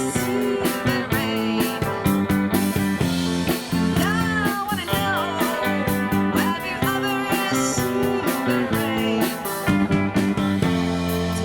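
A rock band playing live: guitars over a steady drum beat, with a lead line of sliding notes.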